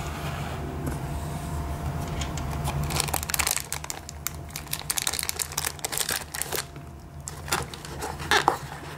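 Clear plastic bag around a wristwatch crinkling as the watch is handled and lifted out of its presentation box. The crackling starts about three seconds in, eases off briefly near seven seconds and picks up again, over a steady low hum.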